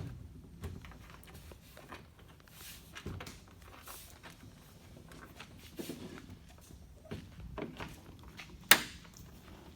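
Scattered light knocks, thumps and handling noises as a fiberglass fender is shifted into place on a car body, with one sharp click near the end.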